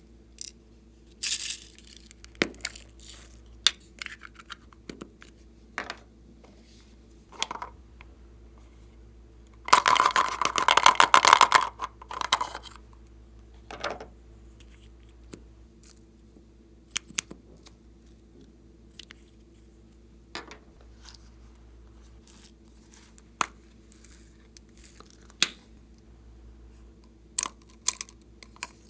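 Glossy slime being handled and mixed: scattered sticky clicks and pops, with a dense burst of crackling lasting a couple of seconds about ten seconds in.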